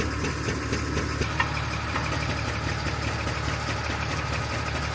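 Large truck engine idling steadily, with a couple of faint clicks about a second and a half and two seconds in.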